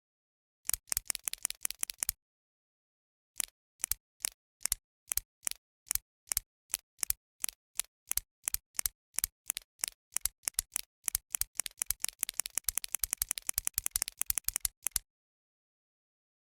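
Click pen being clicked: a quick run of clicks, a pause, then evenly spaced clicks about two to three a second that speed up into a rapid run before stopping.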